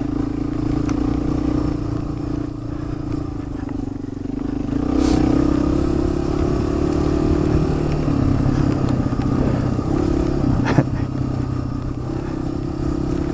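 Motorcycle engine running under way, its pitch and level rising about five seconds in and holding there. A single sharp knock sounds near the end.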